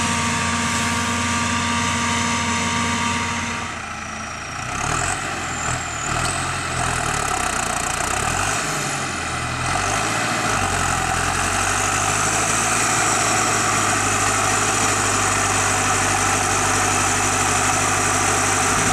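Diesel engine of heavy harvest machinery running steadily, its note changing about four seconds in, with a brief high whine soon after.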